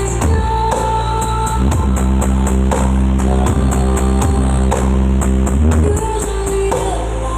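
Loud music with heavy, sustained bass and a steady beat, played through a large sound-system rig during a sound check.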